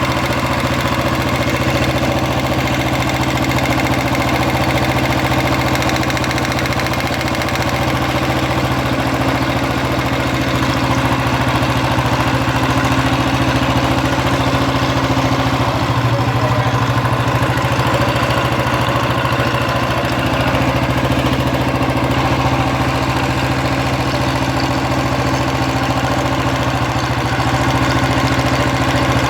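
Royal Enfield Electra 350's single-cylinder engine idling steadily.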